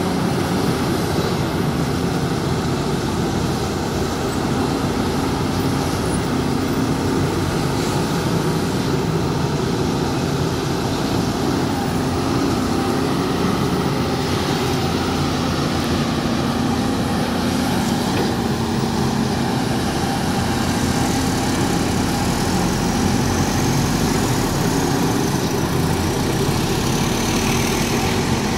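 Volvo EC210B crawler excavator's diesel engine running steadily under load while the arm and bucket dig through wet mud.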